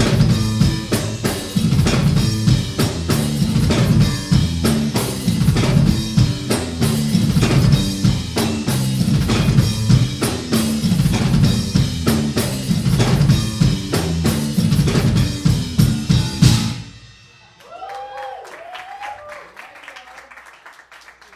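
Electric bass and drum kit playing a loud, fast instrumental rock tune, with dense snare, bass drum and cymbal hits over a heavy bass line. The tune stops suddenly about three-quarters of the way through, leaving only quiet room sound.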